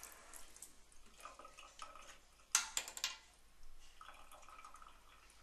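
Bathroom sink tap running and water splashing and dripping into the basin as a toothbrush is rinsed, with one short louder splash about two and a half seconds in.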